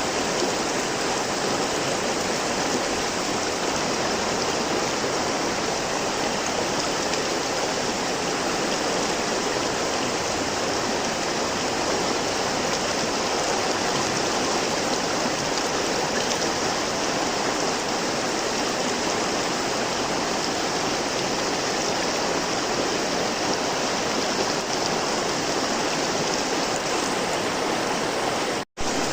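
Flowing river water: a steady rushing of running water, with a momentary drop to silence near the end.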